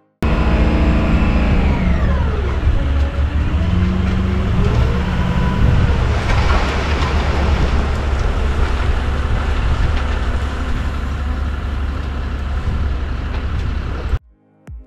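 Loaded dump truck running, with a heavy low rumble; the engine pitch drops over the first two seconds and climbs again around four seconds in.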